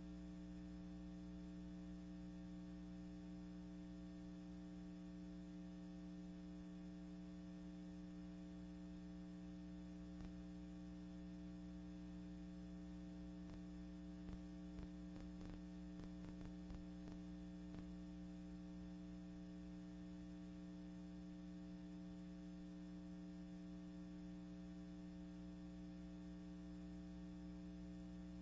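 Steady low electrical hum with a stack of fixed tones, with a scatter of faint clicks about halfway through; no other sound on the soundtrack.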